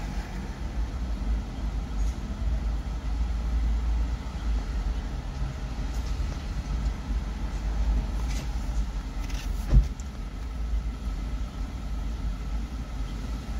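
Steady low rumble with a single sharp knock a little under ten seconds in.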